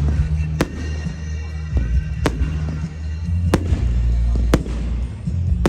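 Firework display: five sharp bangs from exploding aerial shells, about a second or so apart, over music with a heavy bass.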